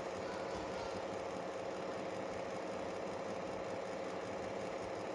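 Steady mechanical hum holding an even pitch, with no change in level.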